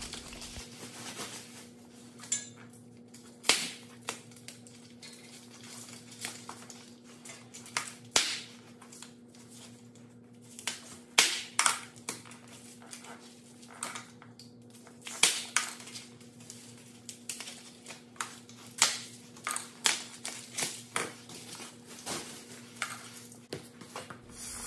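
Plastic and foam packaging being pulled and crinkled off a metal bar stool frame, with irregular clicks and light knocks as the metal parts are handled. A faint steady hum runs underneath.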